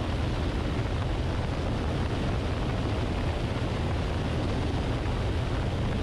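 Steady rush of wind over a wing-mounted camera on a Luscombe light plane in flight, with the low drone of its engine underneath.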